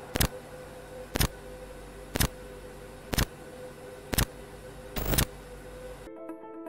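Countdown sound effect: a sharp tick once a second over a steady hiss with a faint hum, the last tick longer than the others. Near the end the hiss cuts off and piano music begins.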